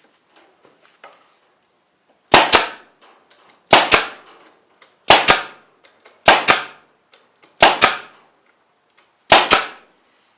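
Power staple gun firing six times, driving staples to fasten wire fencing to a wooden frame; each shot is a sharp double crack.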